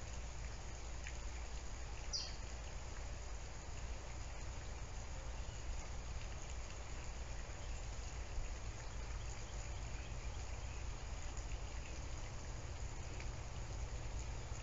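Steady low hum and hiss of background room noise, with one brief high chirp about two seconds in.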